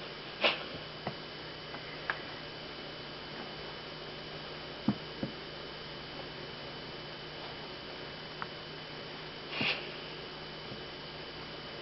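Steady electrical hum, with a few scattered soft taps and thumps and two short breathy bursts, one about half a second in and one near the end.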